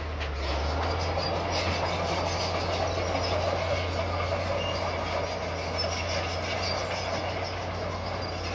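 Crawler bulldozer's diesel engine running steadily under load as it pushes dirt and stone, with its steel tracks clanking and squealing.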